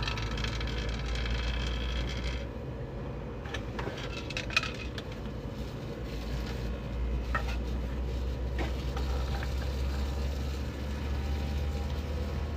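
A steady low machine hum, with a thin high whine that stops about two and a half seconds in and a few light clicks and taps.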